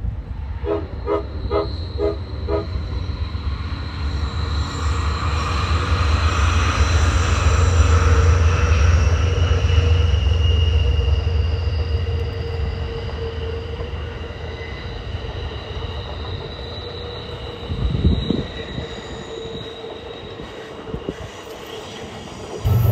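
Amtrak passenger train with a diesel locomotive rolling around a curve. The engine and wheels rumble low and grow loudest in the middle as the train passes, while wheel flanges squeal in high, drawn-out tones on the curved track. A brief low thump comes a few seconds before the end.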